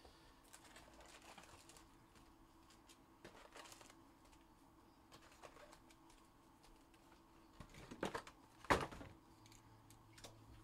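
Foil trading-card packs being pulled out of a cardboard hobby box and stacked: faint rustling and light taps, with two louder crackles about eight seconds in.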